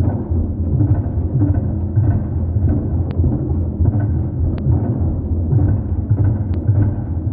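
Polynesian drums playing a steady rhythm, heavy in the low end, with a few faint clicks.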